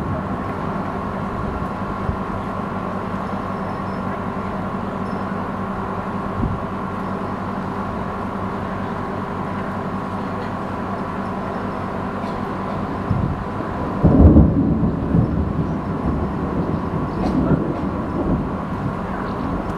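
Thunder rumbling, rising suddenly about two-thirds of the way through and dying away over a few seconds, over a steady low hum.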